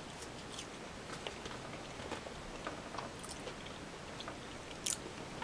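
A person chewing a mouthful of corned beef and chips, with small wet mouth clicks and a sharper click about five seconds in.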